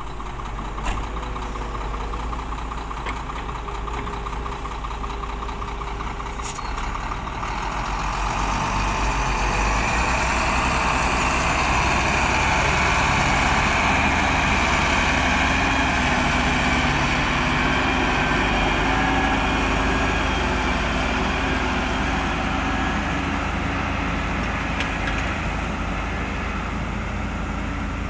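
Excavator's diesel engine running steadily, growing louder about eight seconds in as it works harder, then easing a little toward the end.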